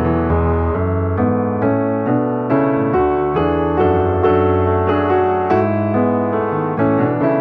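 Background keyboard music with a piano sound, notes struck at an even, unhurried pace.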